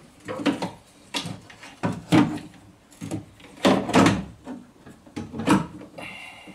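Irregular knocks, clicks and rattles from handling the parts of a car door lock and its new central-locking actuator, about a dozen in all, the loudest about two and four seconds in.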